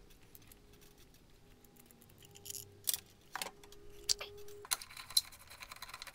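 Several light metallic clicks and clinks, spaced irregularly through the second half, from hand tools and small metal parts being handled during motorcycle engine teardown work.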